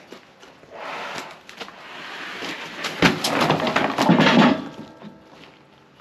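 A heavy white oak slab scraping and knocking against the log as it is slid off. There is a softer scrape about a second in, then a sharp knock about halfway through and a louder stretch of scraping and clattering that dies away before the end.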